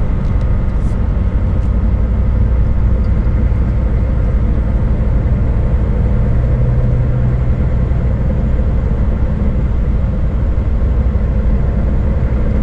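Scania S500 truck's V8 diesel engine cruising, a steady low drone with a constant wash of tyre and road noise.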